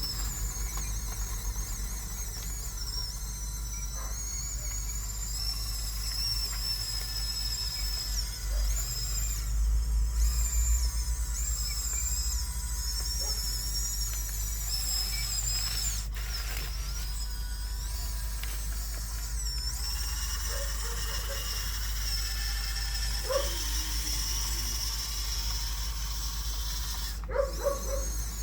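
Huina 1554 RC bulldozer's electric drive motors and gearboxes whining, the pitch wavering up and down as it drives and pushes sand, with a few short sharp sounds in the last several seconds.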